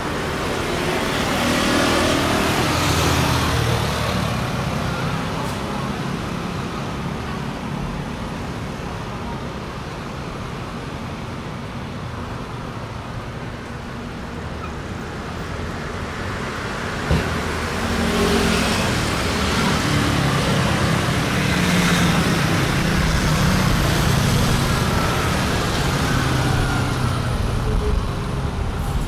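City street traffic: cars and other road vehicles driving past, engine and tyre noise swelling as they pass, loudest in the first few seconds and again from about eighteen seconds on.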